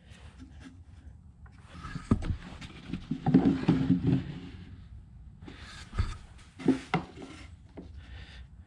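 A plastic ammo can being handled and set onto a wooden shelf: several light knocks and a scraping slide of plastic on wood about three seconds in, then a few more knocks as it is pushed into place.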